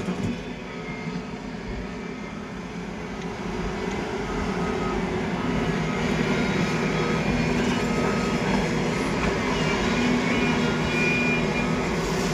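Excavator's diesel engine running steadily, growing louder about four seconds in as it takes on more load.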